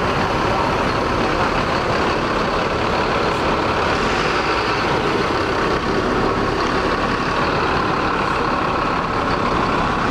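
Diesel engine of a Mercedes-Benz coach running steadily as the bus pulls slowly past close by.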